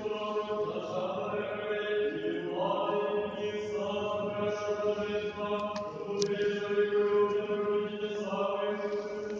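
Orthodox church chant: voices singing, with one steady held note underneath and melody lines above it that change pitch every second or two.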